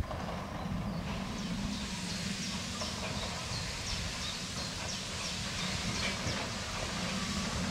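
Steam train pulling away: a low rumble from the wagons on the rails, with a hiss of steam building and growing louder.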